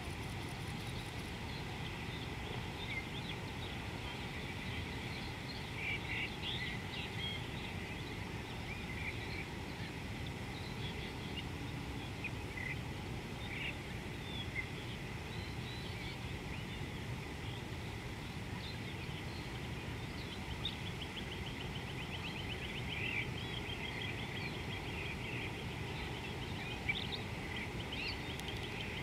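Outdoor wildlife ambience: a steady low background noise with scattered bird chirps and calls. About three-quarters of the way through comes one rapid trill of evenly spaced notes lasting a couple of seconds.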